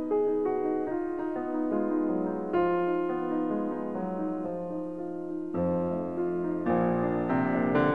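Background instrumental music of piano-like notes and chords, changing at an unhurried pace, with a new, fuller chord coming in about two-thirds of the way through.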